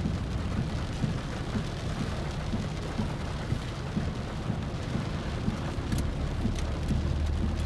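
Heavy rain pelting a car's roof and windscreen, heard from inside the cabin: a dense low rumble thick with the patter of drops, with a few sharp taps near the end.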